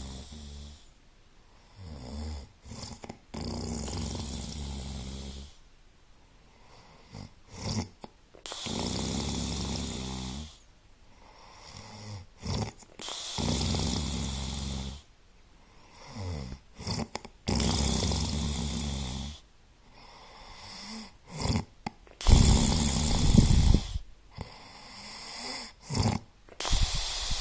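An unidentified animal making repeated snore-like breathing noises, each about two seconds long, coming roughly every four to five seconds with quiet gaps between.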